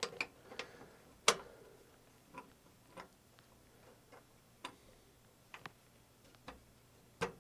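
Faint, irregular metal-on-metal clicks and taps as a 3/16 in mild steel grate plate is pushed and turned into a model locomotive's firebox. The sharpest click comes about a second in, with another near the end.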